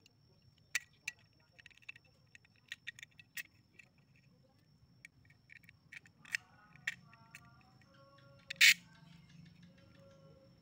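Small metal parts clicking, tapping and scraping against a thin aluminium channel as a threaded rod and a steel pin are worked through its holes. There are a dozen or so sharp clicks, with the loudest one near the end, and steady musical tones enter about halfway through.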